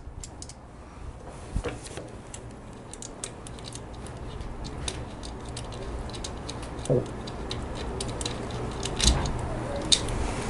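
Steel wrench working the nuts on a Harley-Davidson transmission's kickstarter cover: scattered light metallic clicks and taps, with a few louder knocks, over a faint steady low hum.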